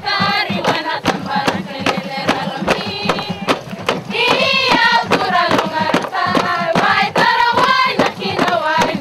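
A group of women singing a traditional Papua New Guinean dance song in unison, high-voiced, over a steady percussive beat at about four beats a second. The singing grows louder about four seconds in.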